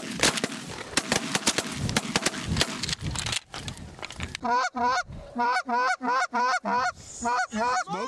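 Canada goose honking: quick runs of short, clipped honks, about four a second, from about halfway through. Before that, the first few seconds are a rough, crackling noise of wind buffeting the microphone.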